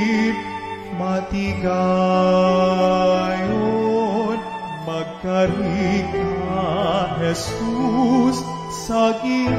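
Slow Hiligaynon communion hymn: a voice singing with vibrato over held accompanying chords.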